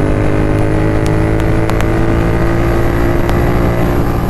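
Royal Enfield Continental GT 650's parallel-twin engine running hard at high revs through Red Rooster aftermarket exhausts. The note climbs slightly over the first couple of seconds, then holds steady.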